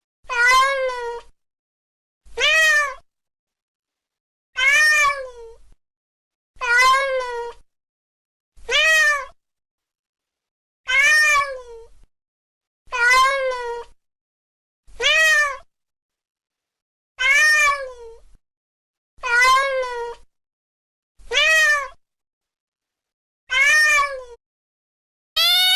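Domestic cat meowing, one short call about every two seconds, each rising then falling in pitch and sounding alike, with silence between calls. A longer, drawn-out call starts right at the end.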